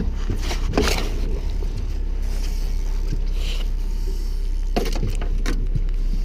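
Boat motor running steadily with a low rumble, with a few knocks of gear in the boat about a second in and again near the end.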